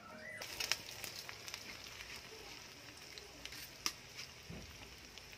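Sliced onions sizzling in hot oil in a kadai over a wood fire: a steady hiss that starts abruptly about half a second in, with scattered sharp clicks and crackles.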